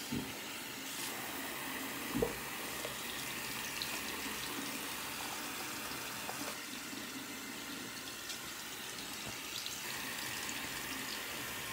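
Bathroom sink faucet running steadily, its stream splashing into the basin and over a rubber shark hand puppet held under it, with one short knock about two seconds in.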